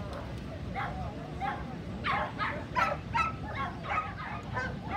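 A dog barking over and over in short, sharp barks, a few at first and then about three a second through the second half.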